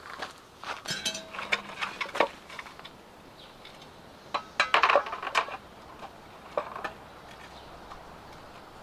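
Camp gear or cookware being handled: scattered clinks and knocks, with a short metallic ring about a second in and a louder clatter around five seconds in.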